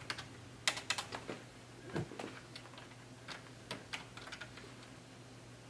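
Typing on a computer keyboard: irregular runs of key clicks that thin out after about four seconds, over a faint steady low hum.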